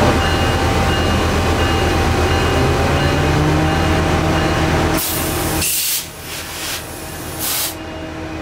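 Train's diesel locomotive rumbling, its engine note rising slightly about three seconds in, then several loud bursts of hissing air over the next few seconds.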